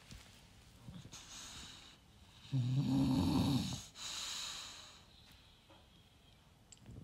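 British bulldog snoring in its sleep: one loud, low snore about two and a half seconds in, lasting over a second, followed by a hissing breath out, with a quieter breath before it.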